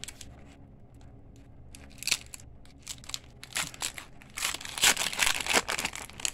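Foil wrapper of a 1992 Fleer Ultra football card pack being torn open and crinkled by hand. A couple of crackles come about two seconds in, then dense crinkling runs through the second half.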